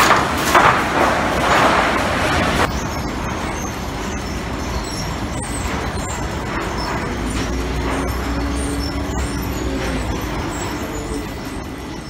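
Boards clattering and knocking as they drop through a sawmill's board-sorting machine into its bins. About two and a half seconds in this gives way to the steady running of a forklift's engine as it carries a stack of sawn lumber.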